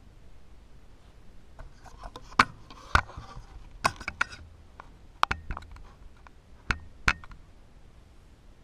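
Camera handling noise: about ten irregular, sharp clicks and knocks with light scraping as the camera is shifted and settled against the tank's glass.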